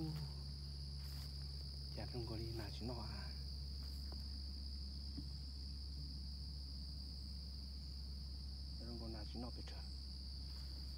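Steady high-pitched insect chorus of crickets and the like, running evenly over a low steady hum.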